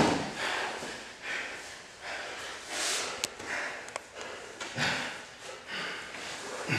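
Hard, heavy breathing of grapplers exerting themselves mid-roll, noisy puffs of breath every second or so, with a couple of short knocks from bodies on the mat.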